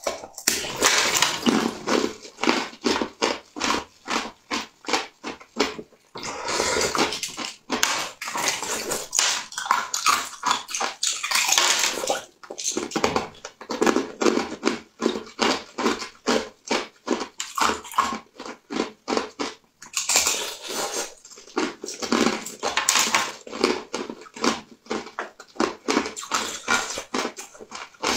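Close-miked eating sounds of translucent jelly sweets being bitten and chewed: a fast, continuous run of mouth clicks, several a second, with louder stretches lasting a second or two.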